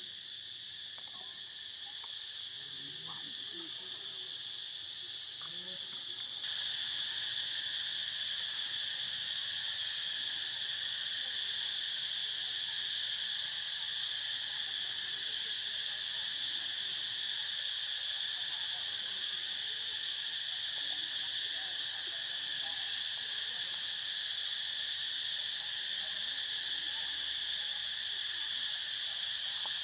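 Steady, continuous chorus of insects shrilling at several pitches at once, with no pauses. It jumps louder about six seconds in and then holds steady.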